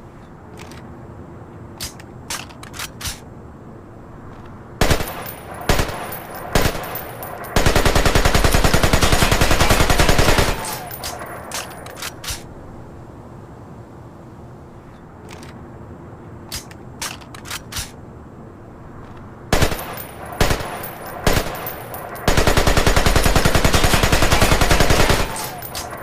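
AK-47 assault rifle gunfire in a pattern heard twice: three single shots about a second apart, then a full-automatic burst lasting about three seconds. Faint clicks sound in the gaps between the strings of fire.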